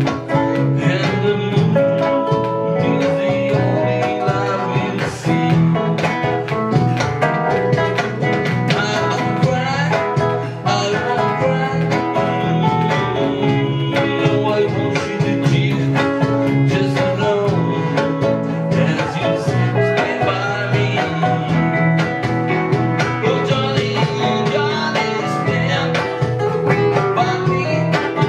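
Several guitars playing a tune together live: a nylon-string classical guitar, steel-string acoustic guitars and an electric guitar, with a steady beat of plucked and strummed notes.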